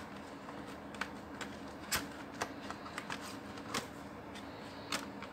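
Clear plastic clamshell packaging handled in the hands, crackling with about half a dozen sharp, scattered clicks.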